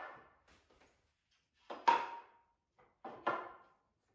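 Wooden easel frame pieces knocking together as they are handled and slotted into place: two sharp knocks, about two seconds in and again a second and a half later.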